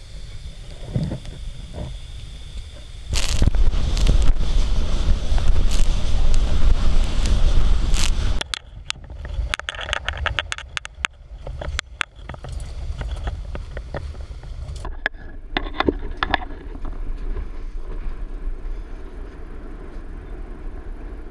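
Small boat under way on choppy sea: engine noise and wind buffeting the camera microphone. It is loudest for about five seconds starting about three seconds in, then drops to a quieter rumble with scattered sharp knocks.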